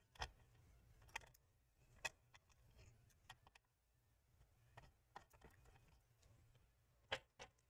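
Faint, scattered clicks and taps of fingers handling and threading the small metal mounting nuts of a CPU liquid-cooler pump block inside a PC case. The sharpest clicks come just after the start, at about two seconds, and as a quick pair near the end.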